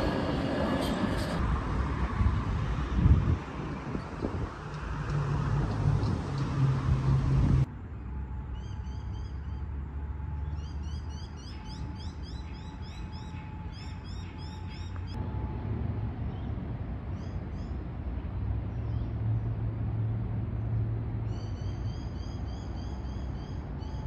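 A G:link light-rail tram running past, a broad rushing noise with a low hum. It cuts off abruptly about eight seconds in, and then birds call in bouts of short, rapidly repeated high notes over a faint steady background.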